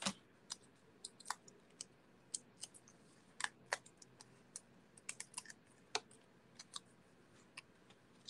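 Light, irregular clicks and ticks of fingers handling cardstock and pressing small foam adhesive dimensionals onto a die-cut paper piece.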